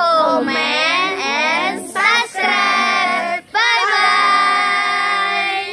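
A group of schoolchildren singing together in unison: a few short phrases with gliding notes and brief breaks between them, ending on a long held note.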